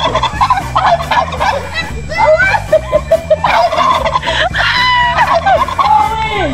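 Poultry calling: several birds' gobble-like calls overlap, swooping up and down, busiest through the middle.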